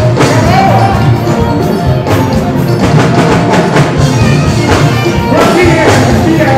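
Live fuji music, with drums and percussion steadily beating and a singer's voice over them.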